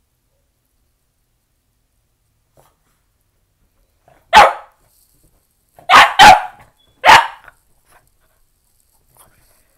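A Boston Terrier barks four sharp times: once, then twice in quick succession, then once more.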